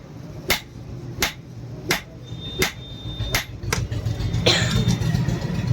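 Hammer blows on hot iron at the anvil, forging a knife blade. The strikes are sharp and come evenly, about one every 0.7 seconds, over a steady low hum. A short burst of hiss comes in about four and a half seconds in.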